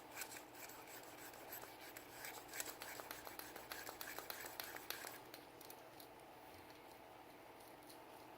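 Quiet scratching strokes and light clicks of hands cleaning a Sig Sauer P320 pistol, a quick run of small strokes that stops about five seconds in.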